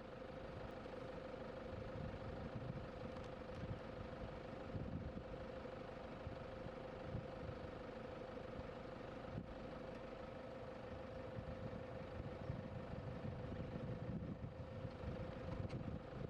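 A vehicle engine idling steadily, with a constant hum above the low rumble.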